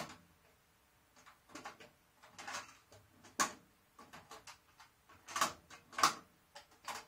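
Music from the hi-fi cuts off at the start, then comes a run of plastic clicks and clunks as the Kenwood stacked system's cassette deck is worked by hand: keys pressed and the tape door and cassette handled. The sharpest clicks come about three and a half, five and a half and six seconds in.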